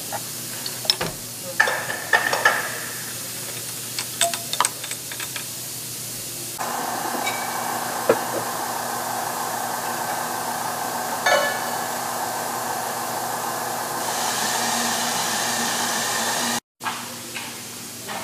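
Metal tools clinking and tapping against a C-130 propeller hub for the first few seconds, then an electric overhead hoist runs with a steady whine and hiss for about ten seconds before cutting off suddenly.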